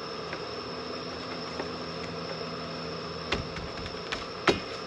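A rubber door seal being pressed and bumped by hand onto the metal pinch seam of a Porsche 914 door, giving three sharp knocks in the second half over a steady background hum.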